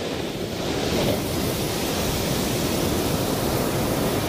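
Sea surf washing onto the shore: a steady rushing noise.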